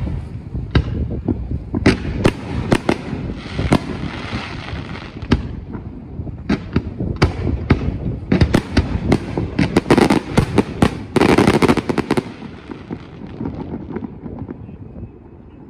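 Aerial fireworks going off in quick succession: many sharp bangs with crackle, thickest about eight to twelve seconds in, then dying away near the end.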